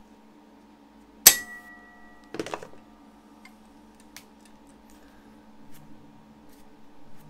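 Metal parts and tools being handled while a bike disc-brake caliper is fitted: a sharp metallic clink that rings briefly about a second in, a short rattle of metal a second later, then a few light ticks, over a steady low hum.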